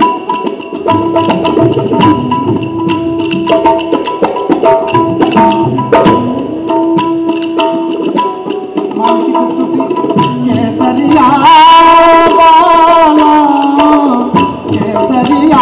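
Live Indian music: tabla and hand drums play a quick, busy rhythm under a repeated held melodic note. About eleven seconds in, a voice takes over with a long, wavering sung note.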